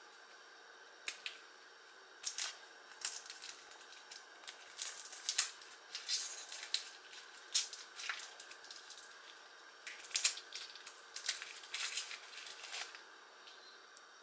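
Foil wrapper of a bouillon cube crinkling and crackling as it is unwrapped by hand, an irregular run of sharp crinkles that dies away near the end.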